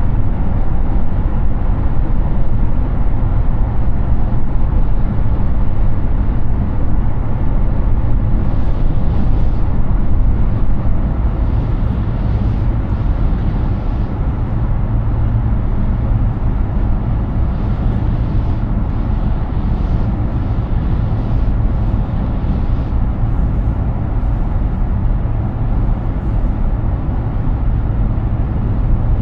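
Steady road and wind noise of a Hyundai Ioniq 6 electric car cruising at highway speed: a deep tyre rumble with no engine note. Brief hissy swells come and go through the middle, and the rumble eases slightly about ten seconds in.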